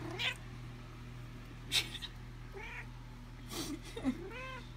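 Domestic cat meowing repeatedly: several short, arched meows that rise and fall in pitch, with a few short sharp noises between them.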